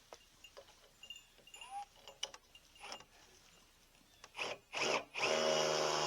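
Scattered light knocks and clicks of handling tools and wood, then a power drill: two short trigger blips, then the motor running steadily from about five seconds in.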